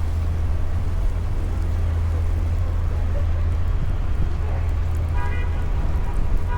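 Steady low rumble of city street traffic, with a vehicle horn starting about five seconds in and held.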